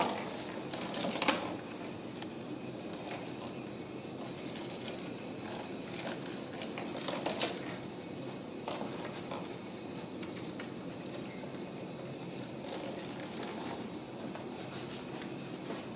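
A small bell jingling and rattling in bursts as kittens bat a toy ball around on a hardwood floor. It is loudest about a second in and again around seven seconds in.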